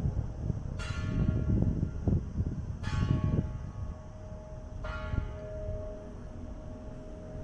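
Church bell of Mellieha Parish Church tolling: single strikes about two seconds apart, three in all, each left ringing with a lingering hum. A low rumble under the first strikes fades about halfway through.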